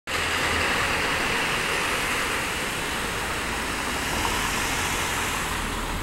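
Street traffic noise: a steady rush of passing vehicles that eases off slowly, with no clock chime.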